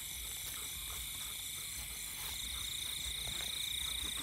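Night chorus of insects and frogs calling after rain: several layers of steady, high-pitched trilling, with one trill growing louder about two seconds in.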